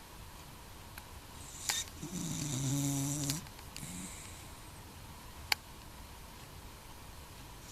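Cocker spaniel snoring: one long, pitched snore a couple of seconds in, lasting just over a second, with a sharp click later on.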